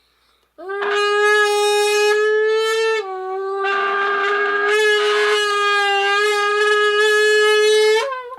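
A soda can being blown into, giving a loud, steady horn-like tone held at one pitch for about seven seconds, dipping slightly in pitch about three seconds in and turning breathy around the middle. It is meant to imitate a V10 Lamborghini Aventador engine.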